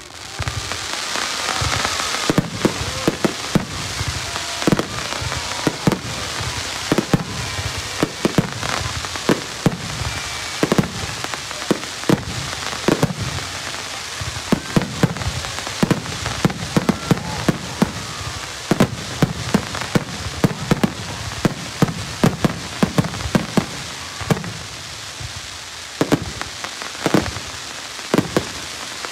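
Aerial fireworks in a rapid barrage: many shells bursting in quick, irregular succession, several bangs a second, over a continuous crackling hiss. It builds up about a second in and stays dense throughout.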